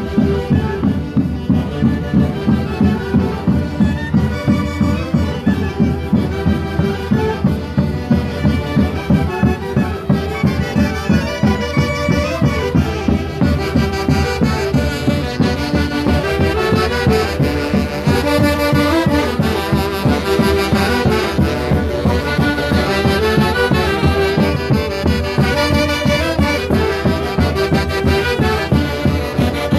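Huancayo-style orquesta típica of saxophones and a bass drum playing a Santiago tune on the march, the saxophones in full chorus over a steady beat of about two drum strokes a second.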